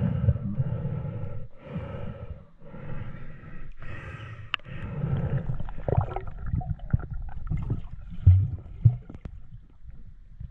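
A snorkeler breathing through a snorkel, heard muffled underwater as a run of about one-second breaths. From about six seconds in come scattered knocks and bumps, with two loud thumps about eight seconds in.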